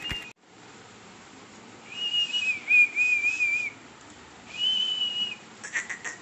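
Caged puppies whining. There are two drawn-out, high-pitched whines: the first wavers for nearly two seconds starting about two seconds in, and the second is shorter and steadier, about four and a half seconds in.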